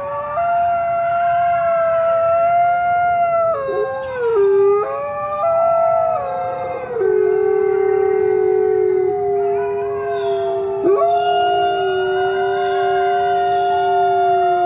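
Several coyotes howling together: long, steady howls held at different pitches and overlapping, with a fresh howl swooping up about eleven seconds in.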